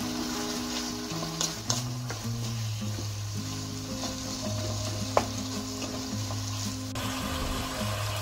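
Food sizzling as it is stir-fried in a pan, with a few sharp clicks of the utensil, under soft background music.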